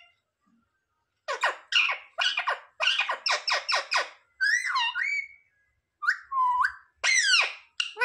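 Indian ringneck parakeet calling: a quick run of about ten short, sharp calls, roughly four a second, then one long wavering call and two more separate calls near the end.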